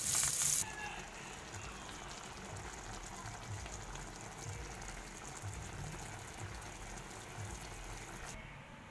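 Fish frying in hot oil, a loud sizzle that cuts off about half a second in. Then banana pieces simmering in coconut milk in a metal pot, a quiet bubbling.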